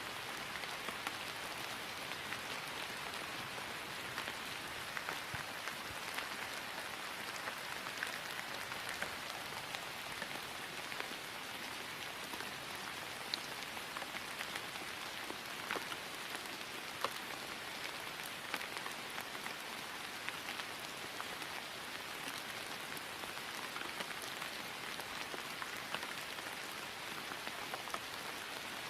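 Steady rain falling on grass: an even hiss of rainfall dotted with many sharp individual drop impacts.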